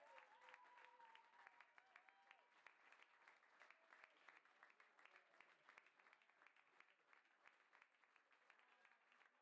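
A crowd clapping, faint and uneven, with a few voices calling out in the first couple of seconds. The clapping thins out toward the end.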